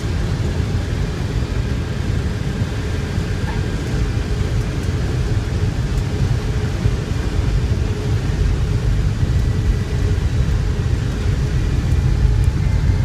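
Steady low rumble of a Boeing C-17 Globemaster's four Pratt & Whitney F117 turbofans and rushing air, heard inside the flight deck on final approach. It grows a little louder near the end.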